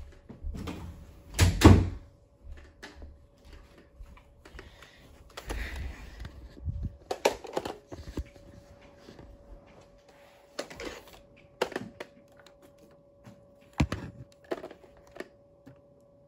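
Intermittent sharp clicks and knocks of a bolt-action Nerf dart blaster being handled, primed and fired, the loudest a double knock about a second and a half in.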